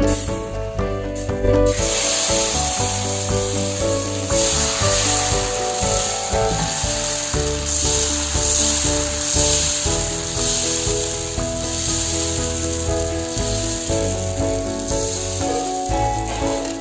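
Dosa batter sizzling on a hot iron pan. The sizzle starts about two seconds in and swells and eases a few times, over background music.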